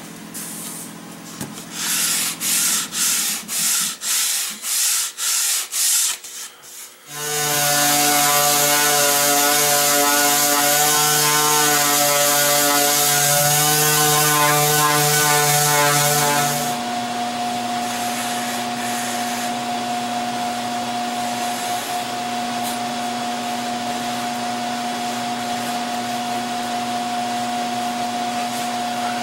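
Sandpaper rubbed by hand over red oak in strokes about two a second. About seven seconds in, an electric motor starts and runs loudly and steadily, then drops to a quieter steady hum about ten seconds later.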